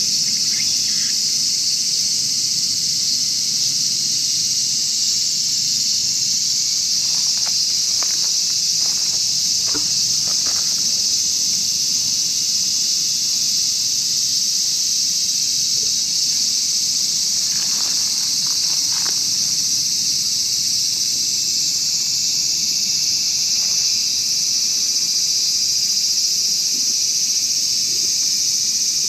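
A loud, steady, high-pitched insect chorus, with a few faint rustles in the middle.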